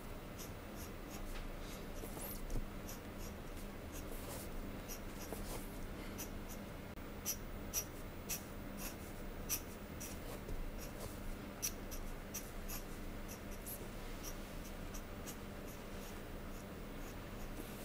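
Steel dip-pen nib scratching on paper in short, quick strokes as a manga page is inked, with a few louder scratches among them.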